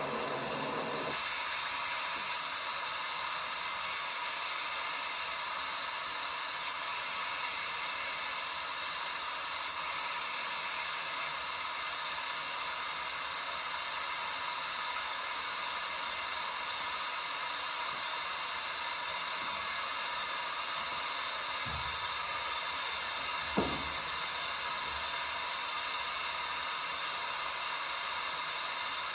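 LG WT5680HVA top-load washer partway through a cycle, giving a steady hiss like water running into the drum. The hiss swells briefly a few times early on, and there is a short thump and a click near the end.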